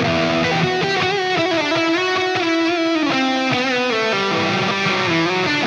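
Very saturated, high-gain distorted electric lead guitar solo from a PRS SE Torero with EMG pickups, run through Helix Native's Archetype Lead amp model (after the PRS Archon) with stereo ping-pong delay and plate reverb. It plays held, sustained notes with vibrato over the backing.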